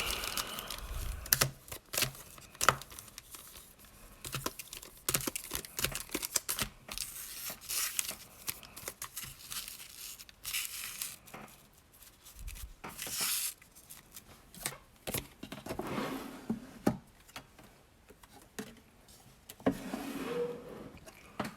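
Plastic and foil Pokémon card packaging torn open and crinkled by hand, in a run of short rips and rustles.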